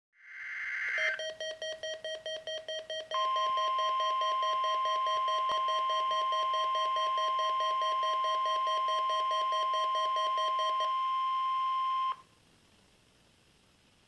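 Midland NOAA weather radio sounding the Required Weekly Test through its speaker. A short data burst of the SAME header comes first, then a rapid beeping about four times a second. About three seconds in, the steady 1050 Hz weather-radio warning alarm tone joins the beeping. The beeping stops about a second before the tone cuts off sharply, some twelve seconds in.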